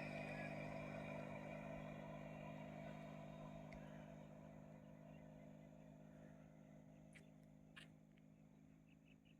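A motor vehicle's engine fading steadily into the distance over a steady low hum, with two sharp clicks near the end.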